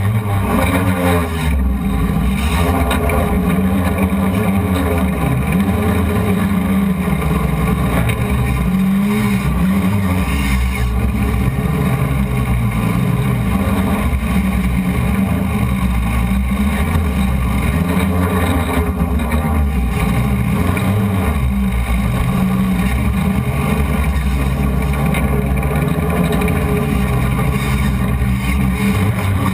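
Hexacopter's six BP Hobbies brushless motors spinning 12x3.8 props, heard from the onboard camera as a loud, steady buzzing drone. Its pitch wavers up and down as the motor speeds change.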